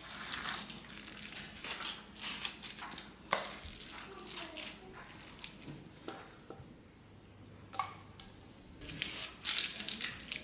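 Raw minced-beef mixture squishing as it is scooped by hand from a stainless steel bowl and pressed into a cake tin, with scattered clinks and scrapes of the metal bowl and tin and one sharper knock about three seconds in.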